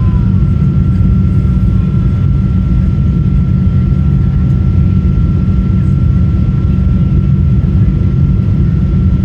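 Boeing 777-200 jet airliner heard from inside the cabin: a loud, steady rumble from its turbofan engines with a steady high whine running over it.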